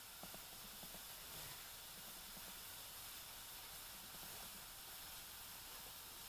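Faint, steady hiss of a chili-paste sauce simmering in a frying pan on a gas burner, with a few light ticks about half a second in.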